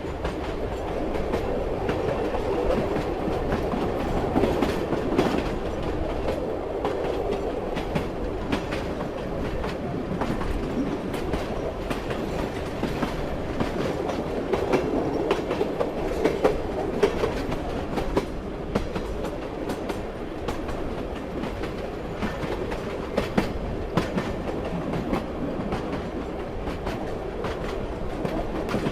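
Train running along the track: a steady rumble with the clickety-clack of wheels over the rails, short irregular clicks scattered throughout.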